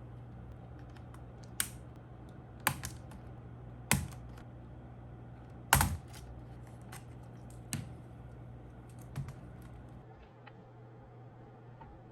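Keys on a laptop keyboard being pressed one at a time, irregular clicks with a few louder presses among fainter ones, over a low steady hum.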